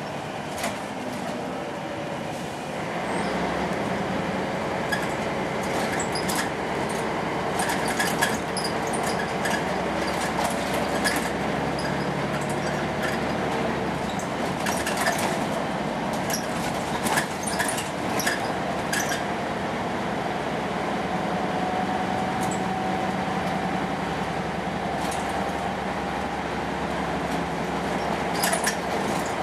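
Interior of a Volvo B10M single-deck bus on the move: the mid-mounted diesel engine running under way with road noise, getting louder about three seconds in. Short sharp clicks and rattles from the bus body and fittings come and go through the middle stretch and again near the end.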